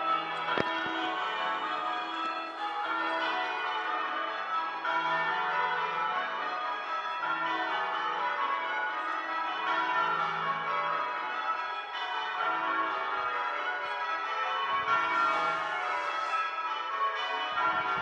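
A ring of church tower bells ringing changes, the bells struck one after another in an unbroken, even stream with their tones overlapping.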